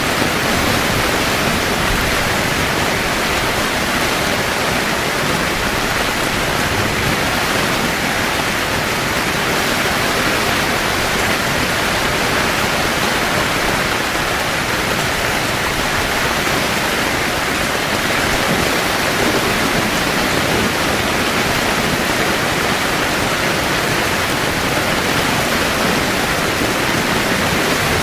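Heavy rain falling steadily on a camping tent, a dense even downpour with no thunder claps.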